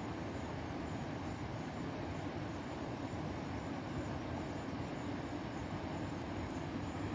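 Steady low rushing background noise with no distinct events.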